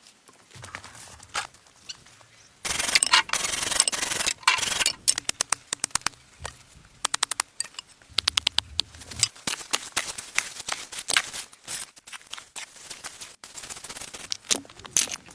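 Scraping and rubbing sounds, with a loud rough stretch about three seconds in, then a run of quick sharp clicks.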